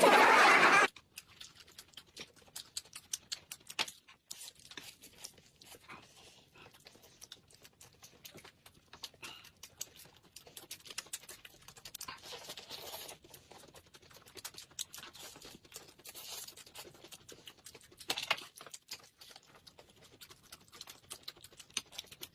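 Eating sounds: chewing with many small, irregular clicks, fairly quiet. A short loud burst of noise opens it, lasting about a second.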